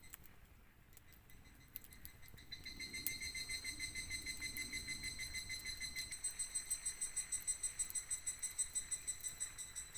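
An insect calling outdoors at dusk: a high, rapidly pulsing trill that swells in about two and a half seconds in and pulses about seven times a second, fading near the end.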